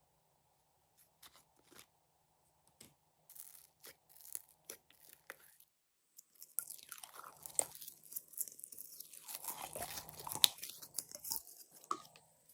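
Glossy slime being squished and worked by hand, giving sticky clicks and pops: a few scattered clicks at first, then a dense run of crackling from about halfway through.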